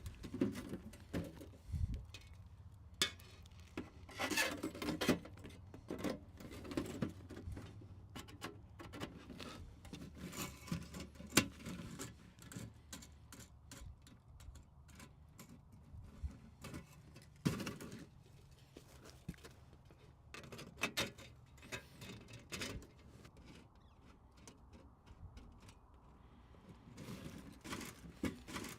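Camping gear being handled: irregular rustling with scattered light clicks and knocks, two of them sharper, about eleven and seventeen seconds in.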